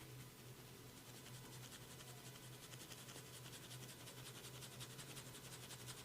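Faint, fast rhythmic rubbing of a masseur's fingers on the head and ears, about ten strokes a second, starting about a second in, over a low steady hum.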